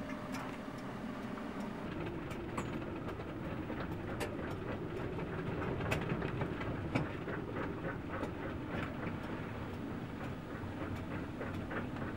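Strong wind on a sailboat at anchor, a steady rumble broken by many sharp, irregular clicks and knocks.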